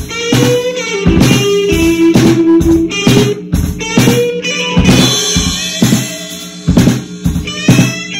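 Bluesy instrumental played on drum kit and guitar: the drums keep a steady beat with kick-drum hits while the guitar plays sustained notes, some sliding in pitch.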